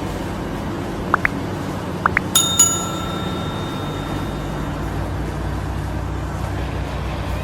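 A sharp metallic strike that rings on for about two seconds, preceded by two pairs of short rising chirps, over a steady low machine hum.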